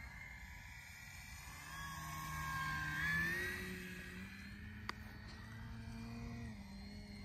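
Electric motor and propeller of an RC model Cessna 150T whining as it passes low, loudest about three seconds in, with the pitch stepping up as the throttle opens. A single sharp click near five seconds.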